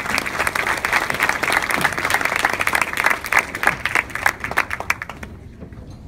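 Audience applauding, many hands clapping at once; the applause stops about five seconds in.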